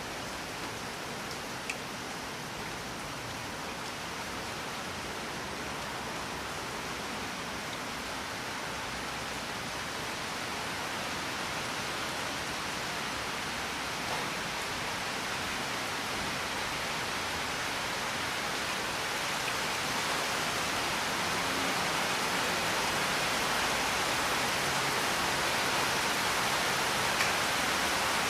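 Steady rain falling, an even hiss of many drops that grows gradually louder over the stretch, with an occasional single drop tick standing out.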